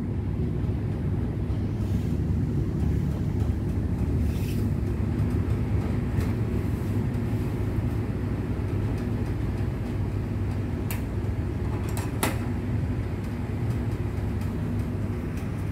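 Steady low hum of running machinery or background traffic, with a few light clicks and knocks about eleven and twelve seconds in as RAM sticks are handled.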